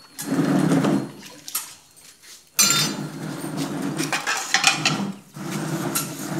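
Washing at a bucket on a concrete floor: water sloshing and vessels clattering in uneven bursts, louder from about halfway through.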